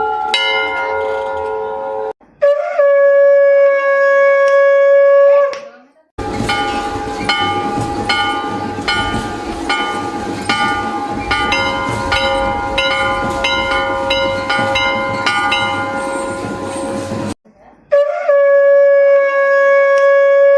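A conch shell (shankh) is blown in a long steady note. Temple bells are then rung in quick repeated strokes for about ten seconds, and the conch is blown again near the end. A struck bell rings out at the start.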